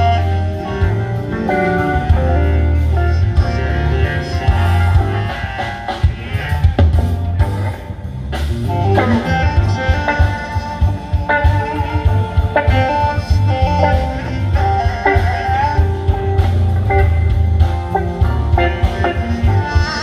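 Live band playing an instrumental passage on keyboards, electric guitar, bass guitar and drum kit, with a strong bass line underneath.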